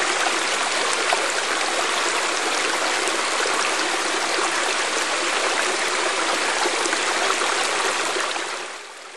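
A small stream running over rocks, a steady rush of water that fades down near the end.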